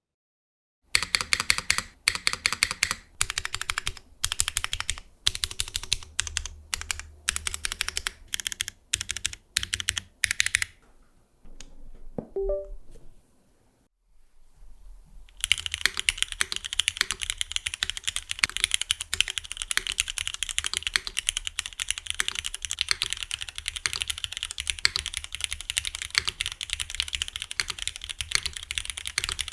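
Typing on a custom mechanical keyboard: an aluminium-cased GEONWORKS F1-8X V2 with lubed Cherry MX2A Black linear switches and GMK keycaps. Short bursts of keystrokes for about ten seconds, a brief lull, then steady fast typing from about fifteen seconds in.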